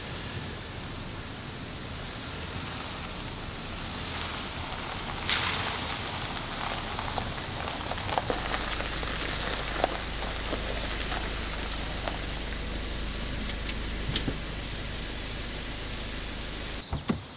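Jeep Wrangler JL arriving over a gravel road: tyres crunching and popping stones as it rolls up close, with the low sound of its engine under a steady hiss of rain. The engine sound stops abruptly near the end.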